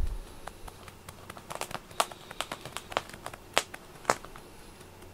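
Irregular crackling clicks as a hand strokes a cat's thick fur, the loudest about two, three and a half and four seconds in.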